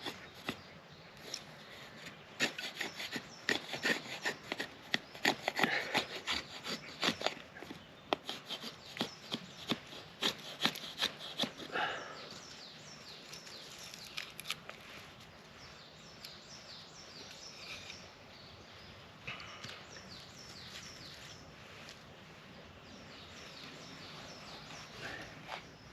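Gerber Freeman folding knife blade shaving wood in quick, repeated scraping strokes for about ten seconds, then stopping.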